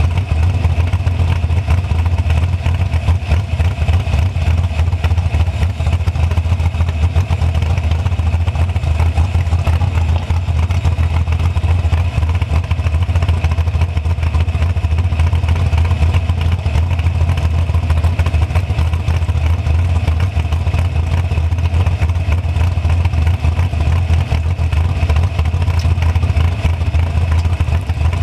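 Dragster engine running at a steady low idle as the car rolls slowly, with a constant deep note and no revving.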